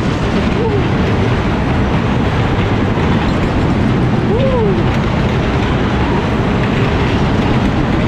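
Vintage Skid fairground ride running, heard from a rider's seat: a steady, loud rumble and rush of noise, with a short rising-and-falling tone about four seconds in.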